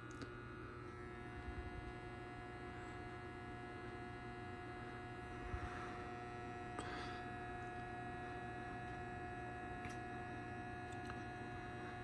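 Schumacher MC1281 battery charger humming steadily while charging a car battery, a continuous hum with a thin steady tone above it. This is the steady transformer hum of the charger under load, not its pulsing 'wow, wow' noise.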